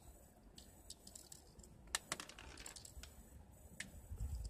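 Faint scattered plastic clicks and rattles from a Crosman P10 Phantom BB pistol magazine being handled and worked, with a quick cluster of sharper clicks about two seconds in.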